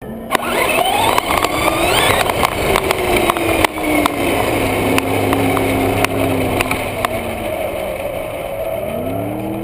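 Traxxas Slash RC truck driving fast over rough asphalt, heard from a camera riding on it. The electric motor and gears whine, rising in pitch as it accelerates in the first couple of seconds, over a steady rushing noise with scattered sharp clicks and knocks from the chassis on the pavement.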